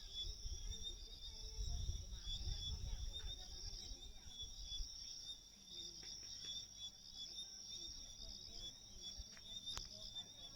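Steady high-pitched chorus of insects such as crickets, singing in two bands, with a low rumble in the first half and a single sharp click near the end.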